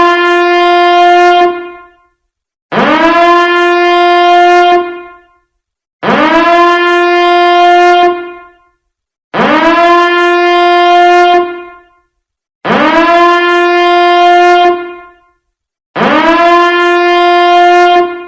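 Nuclear-plant emergency warning siren sound effect, sounding in repeated blasts about once every three seconds. Each blast swoops up quickly to a steady pitch, holds for about two seconds, then dies away before the next.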